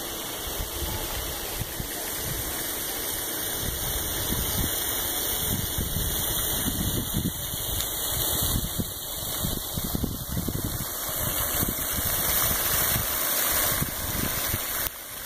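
Wind buffeting the microphone in irregular low gusts over a steady hiss.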